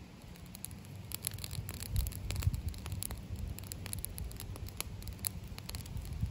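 Small wood fire crackling and popping inside a perforated metal can stove as it catches and flares up, over a low steady rumble; it grows louder about two seconds in.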